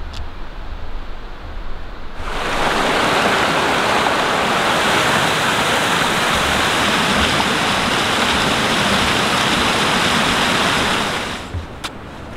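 Small mountain creek cascading over rocks: a loud, steady rush of water that cuts in suddenly about two seconds in and cuts off near the end, with quieter low outdoor rumble on either side.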